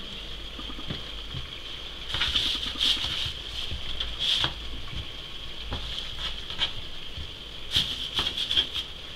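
Light taps and brushing sounds of hands at work on a floured wooden counter: a plastic flour sieve shaken and tapped, and balls of msemen dough set down in the flour. A faint steady high-pitched hum lies underneath.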